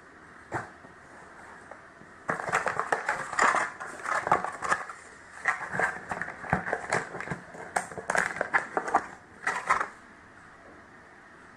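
Packaging being handled and unwrapped: irregular crackling and rustling with many small clicks, starting after about two seconds and stopping shortly before the end, after a single click about half a second in.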